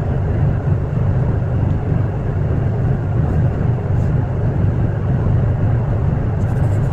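Passenger ferry's engine droning steadily, a low even rumble with a haze of noise above it.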